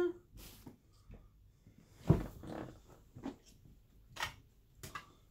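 Serving spoon and metal saucepan clinking and scraping as food is dished onto a plate: a handful of scattered knocks, the sharpest about two seconds in.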